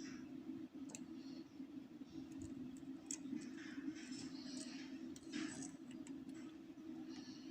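Lock pick scraping and clicking against the pins inside a euro cylinder lock as it is being picked, a scatter of faint light clicks and scratches over a steady low hum.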